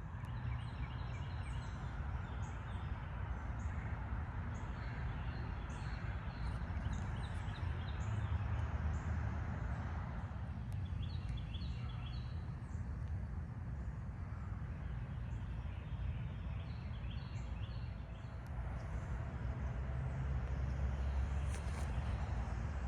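Birds chirping in short repeated runs over a steady low rumble.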